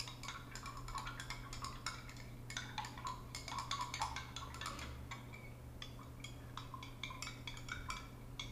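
A stirring rod clicking and tapping quickly and irregularly against the inside of a small cup as powder is stirred into a liquid to dissolve it, over a steady low hum.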